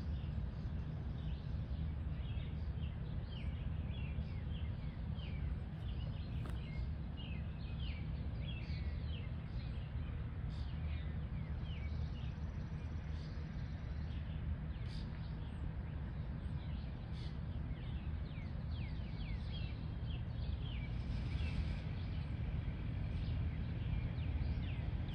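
Birds calling with many short, quick chirps that drop in pitch, repeated throughout, over a steady low rumble.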